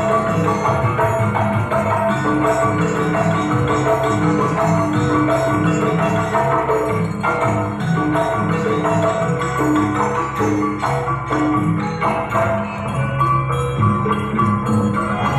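Recorded dance accompaniment music, led by pitched mallet percussion playing repeated melodic notes over a steady beat.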